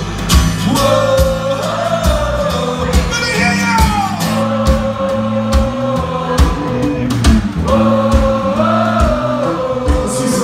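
Live rock band playing: a male voice singing long held notes over acoustic guitars, electric bass and a steady kick-drum beat.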